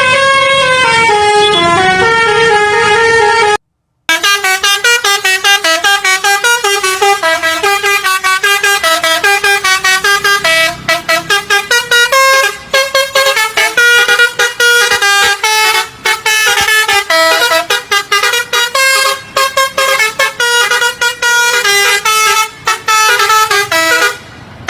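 Indonesian bus 'telolet basuri' musical horn playing tunes of quick stepped notes. A falling phrase breaks off a little before four seconds, and after a short gap a fast melody of short notes runs on with brief pauses.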